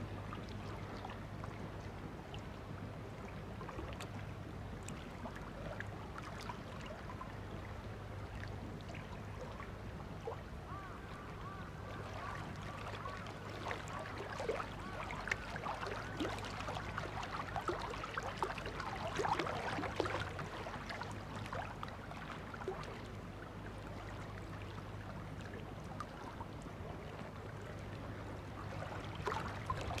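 Lakeside nature ambience: water lapping, with wild birds giving many short calls that are thickest in the middle stretch and again near the end, over a steady low hum.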